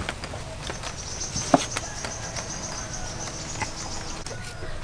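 An insect buzzes in a steady high whine that starts about half a second in and stops just before the end. Under it come scattered light clicks of duck eggs knocking against each other and against plastic egg trays as they are handled, with one sharper knock about a second and a half in.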